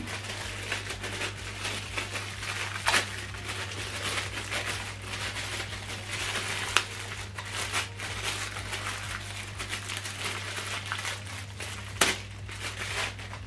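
Plastic bag crinkling and crackling as a power cable is unwrapped from it by hand, with a few sharper crackles along the way, over a steady low hum.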